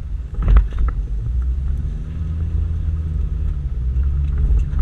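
Toyota Land Cruiser 120 rally car's engine running under steady load with tyres rumbling over a rough dirt track, heard from inside the cabin. A sharp thump about half a second in.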